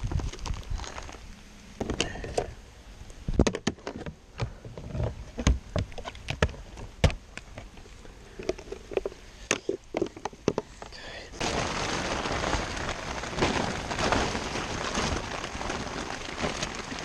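Knocks, thunks and clatter of a tarp being rigged over a kayak. About eleven seconds in, a steady hiss of falling rain starts suddenly and continues.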